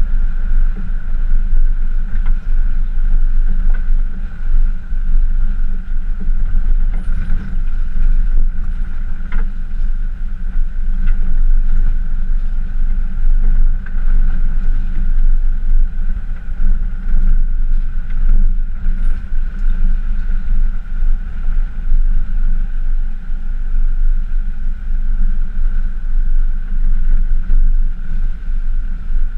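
Pickup truck driving along a rough dirt forest track towing an off-road camper trailer: a steady, loud low rumble of engine and tyres that wavers with the bumps, with a few faint knocks from the load, heard from a camera mounted on the truck.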